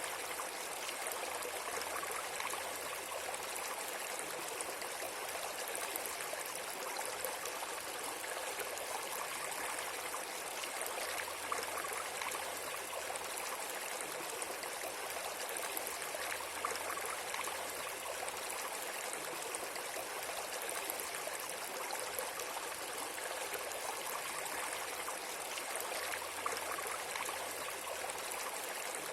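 Steady rushing of flowing water, like a stream, even and unbroken.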